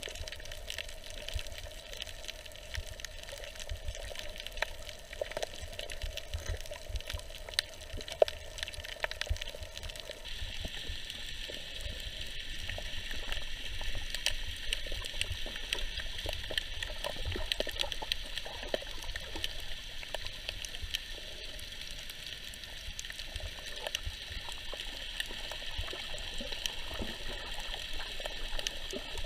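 Underwater sound picked up by a snorkeller's camera in its waterproof housing: a steady watery hiss threaded with many small clicks and crackles. About ten seconds in the hiss turns brighter and higher.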